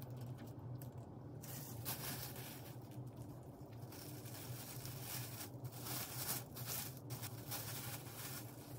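Thin clear plastic bag crinkling and rustling in the hands as a pastry is wrapped in it. The crinkling starts about a second and a half in and goes on in irregular handfuls.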